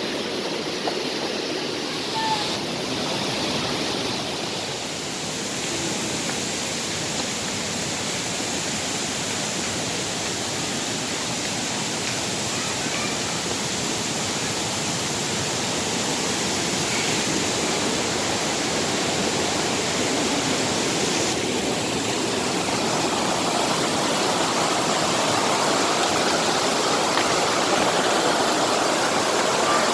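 A waterfall's steady rush of falling water, growing a little louder over the second half.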